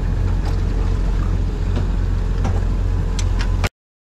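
Steady low rumble of a boat engine on the water, with a few light clicks, cutting off suddenly near the end.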